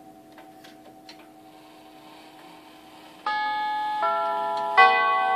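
Herschede nine-tube grandfather clock: the movement ticks softly under a faint lingering ring. About three seconds in, the tubular chimes start the three-quarter-hour chime, three tubes struck about three-quarters of a second apart, each louder than the last.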